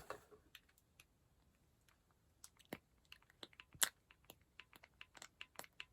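Faint, irregular small clicks and taps from handling a plastic skincare container as cream is dispensed. The taps are scattered, mostly in the second half, with one louder tap near the middle.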